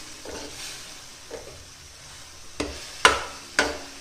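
A metal ladle stirring mutton, tomatoes and green chillies in a metal karahi, scraping through the wet mix and clanking against the pan, with three sharp knocks in the second half. A light sizzle runs underneath as the last of the water cooks off.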